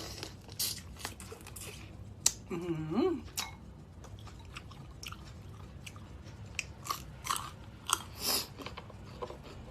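Close-miked chewing and biting of crab, with scattered sharp clicks and crunches of shell. A short hummed vocal sound with a rising pitch comes about three seconds in.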